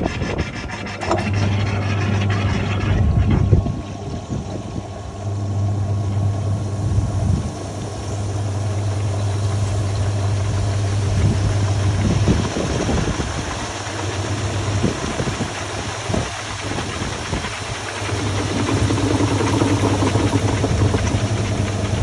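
GE Profile top-load washing machine spinning a load of towels: a low motor hum that cuts in and out in stretches of a few seconds, over the rubbing and rushing of the turning basket.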